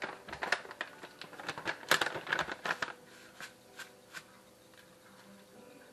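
Crinkling and scratching of a plastic spice bag being handled and opened, a rapid irregular rustle for about three seconds, then a few separate light taps.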